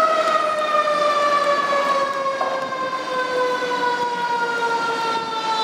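Fire engine siren sounding one long tone that falls slowly and steadily in pitch.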